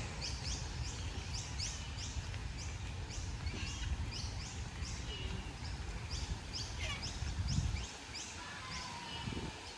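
Birds chirping: a fast run of short, high, downward-sliding chirps, two or three a second, over a low rumble that drops away near the end.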